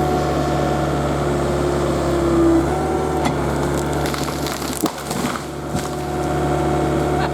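Komatsu mini excavator's diesel engine running steadily while the pine tree's wood and roots crack and splinter, in a run of sharp snaps from about three seconds in.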